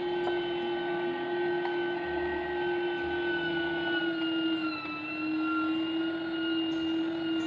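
Electric meat grinder running steadily while mincing vegetables, its motor giving a steady whine. The pitch sags slightly about halfway through as the motor takes more load.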